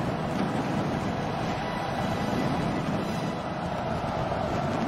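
Large fireworks barrage, many bursts overlapping into a steady rumble and crackle.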